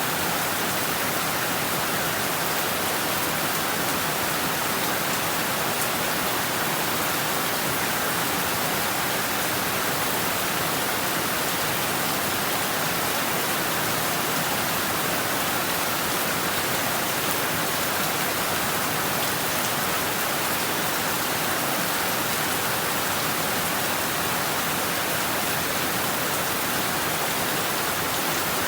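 Heavy rain falling steadily on rooftops and trees, an even, unbroken hiss that does not change.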